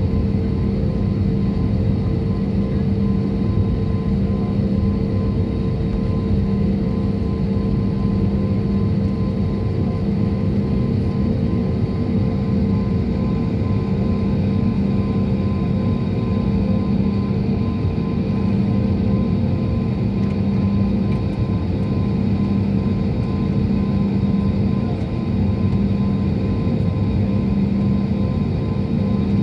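Jet airliner's engines and airflow heard from inside the passenger cabin: a steady, unchanging noise with a low hum and a few constant tones running through it.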